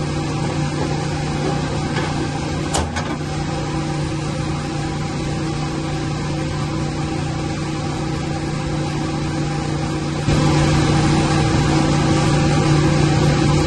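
Steady machinery noise of motors running in a pump room, with a steady low hum. A single sharp click about three seconds in, and the noise gets a little louder about ten seconds in.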